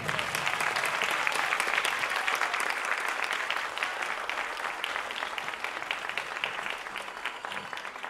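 Audience applause: many people clapping, a dense, steady patter that starts suddenly and slowly weakens.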